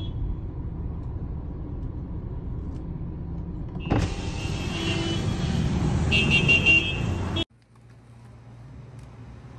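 Roar of a burning pickup truck, a steady low rumble. About four seconds in it cuts to a louder hissing stretch with a few brief high tones, then cuts to a faint low hum.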